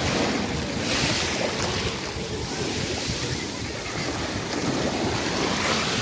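Small sea waves washing around in the shallows, with wind buffeting the microphone; the wash swells about a second in and again near the end.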